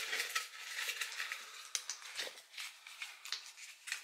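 Folded paper slip rustling and crinkling as it is handled and unfolded by hand, with a run of small crackles and one duller knock about two seconds in.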